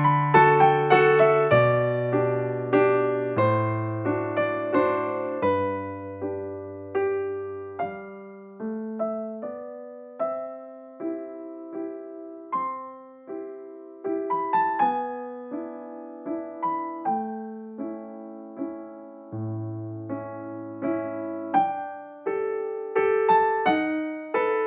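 Background music: a gentle piano melody over slow bass notes, each note struck and fading.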